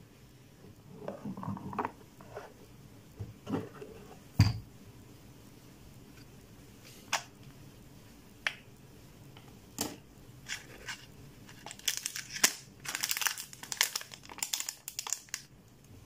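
Hard plastic parts of a mini USB air cooler being handled: the ice-box drawer is pulled out and its snap-on grille lid is unclipped, giving scattered clicks and one sharper knock about four seconds in. Near the end comes a run of rapid crackling clicks.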